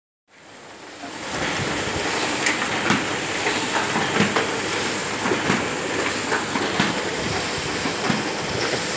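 A Hamada E47 sheet-fed offset printing press running: a steady mechanical whir with a regular clatter of clicks, about two a second. The sound builds up over the first second.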